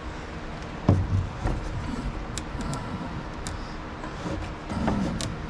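Electrical cable being worked through holes in wooden framing, with a sharp knock about a second in, short creaks and scrapes of the wire rubbing, and scattered light clicks, over a steady low hum.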